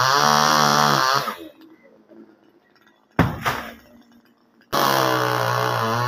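Top-handle two-stroke chainsaw revved hard in two bursts, each running high and steady for about a second or more: one at the start and one from near five seconds in. In the quiet gap between them, about three seconds in, there is a single sharp knock.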